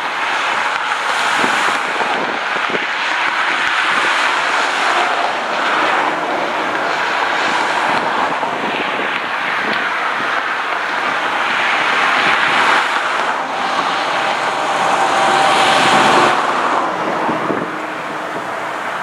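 Continuous vehicle noise with wind on the microphone, swelling twice in the second half and easing near the end.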